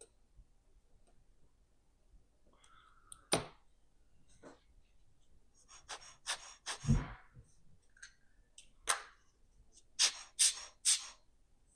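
Scattered small clicks and taps of steel tweezers on a mechanical watch movement, with short breathy sounds, three in quick succession near the end.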